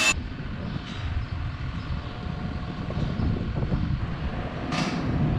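Low, uneven rumble of wind buffeting the microphone, with a loader's engine running in the background.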